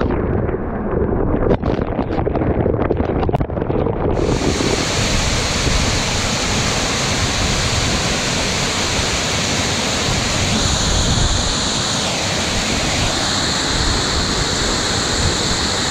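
Waterfall spray beating on a head-mounted camera, a muffled rush with scattered knocks. About four seconds in it changes to the full, steady rush of the waterfall pouring into the pool.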